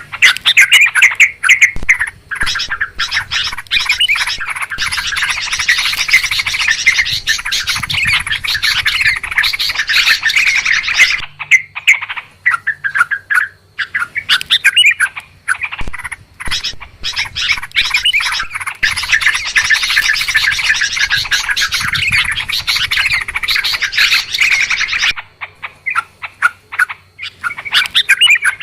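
Yellow-vented bulbuls chattering noisily, a dense run of rapid, overlapping calls of the kind played as a lure to bring bulbuls down. The chatter breaks off briefly about 11 seconds in and thins to scattered calls near the end.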